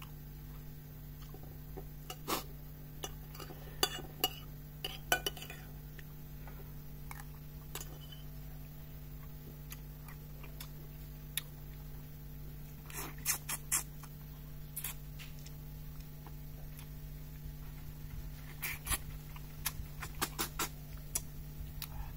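Scattered clinks and taps of dishes and cutlery, in small clusters, over a steady low hum.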